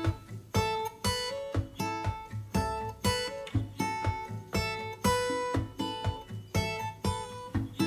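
Background music: an acoustic guitar strumming in a steady rhythm, with picked melody notes over the chords.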